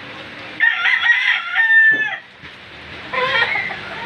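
A rooster crowing: one long crow starting about half a second in and ending with a falling note, then a shorter call near the end.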